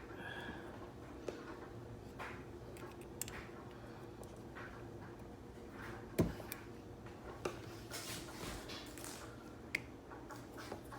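Light clicks and rubbing of small plastic parts handled by hand as a white plastic O-ring is worked into a dishwasher unicoupler, with one sharper click about six seconds in, over a faint steady hum.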